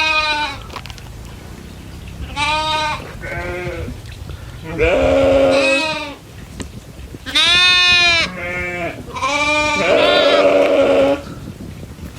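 Goats bleating: a run of repeated bleats, some overlapping, at different pitches from more than one animal.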